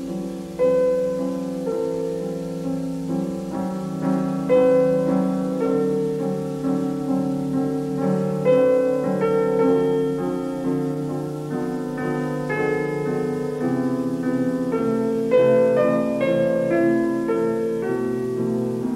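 Background piano music, a slow melodic piece with chords changing every second or so and stronger accented notes every few seconds.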